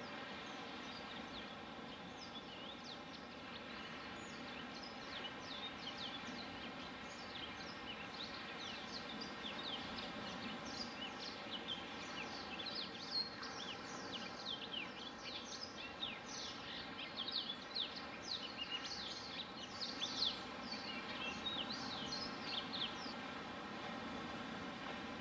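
Many small birds chirping, a dense chatter of short, quick, overlapping calls that thickens after the first few seconds and thins out near the end. Under it runs a steady wash of surf from the beach.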